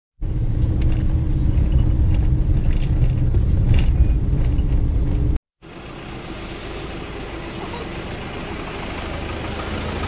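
Car driving along a road, heard from inside the cabin: a steady low rumble of engine and tyres. About five seconds in it cuts off abruptly, and a quieter steady hum follows and slowly grows louder.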